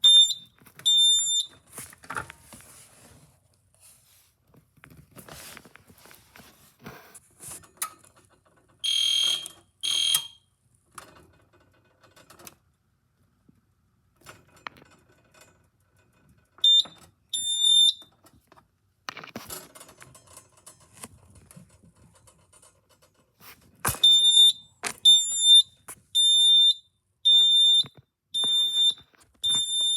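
Fire alarm sounding short, high-pitched beeps in pairs, with a harsher double blast about nine seconds in and a quick run of about eight beeps near the end. Faint clicks and knocks fall in the gaps between the beeps.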